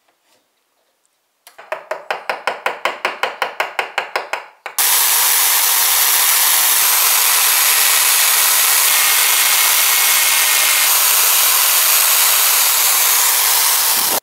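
About three seconds of quick rhythmic scraping or rasping strokes on wood, about six a second. Then a drill press starts and runs steadily, its bit boring into the sabre grip.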